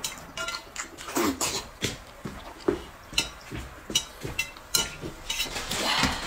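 A person slurping noodles in short, irregular sucks, with chopsticks clicking against a metal bowl.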